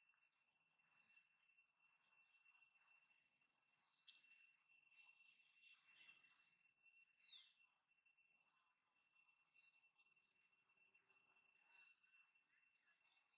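Faint ambience of a small bird giving short, high chirps about once a second, over a steady high-pitched whine.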